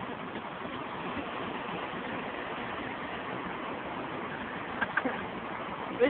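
Steady road and engine noise inside a moving car's cabin, with a couple of faint short sounds about five seconds in.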